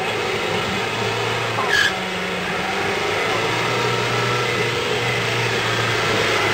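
Land Rover Defender 90 engine running at a fairly steady speed while the vehicle works its way over off-road terrain. There is one brief sharp noise about two seconds in.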